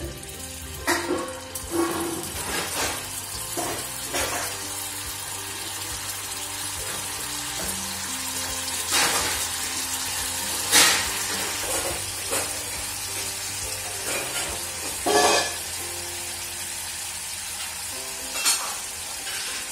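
Paneer cubes frying in hot oil in a kadai, sizzling steadily as more pieces are dropped in, with a few brief louder bursts of sizzle.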